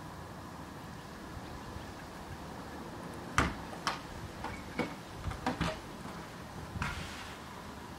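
A handful of sharp clicks or taps, about six of them spread over two seconds from a little before the middle, then a short soft rustle near the end, over a low steady background.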